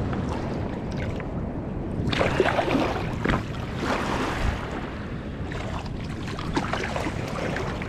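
Shallow river water splashing and sloshing as a fish stringer is handled and the sauger on it thrash, with the splashing strongest about two to four seconds in, over a steady low rumble.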